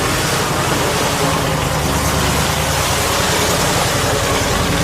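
A steady rush of water spraying as a muddy toy vehicle is washed, with a low steady hum underneath.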